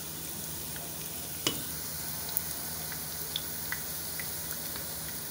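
Sliced onions, dried red chillies and whole spices sizzling in hot oil in a pan, frying to a light brown, with scattered crackles and a wooden spoon stirring through them. A sharper knock about one and a half seconds in.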